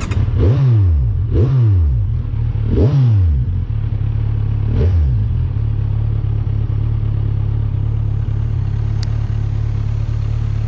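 Motorcycle engine blipped four times, each rev falling away quickly, then running at a steady idle. A short sharp click about nine seconds in.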